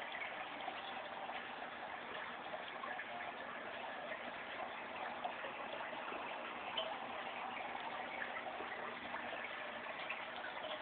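Aquarium water bubbling steadily, a constant watery fizz with small scattered pops.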